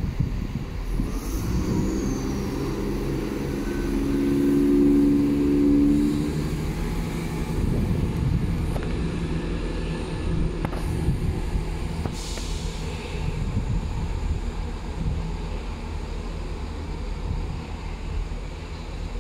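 Chiltern Railways Class 168 diesel multiple unit pulling away from the platform. Its diesel engines grow louder over the first few seconds and then settle and fade as it draws away. A short hiss comes about twelve seconds in.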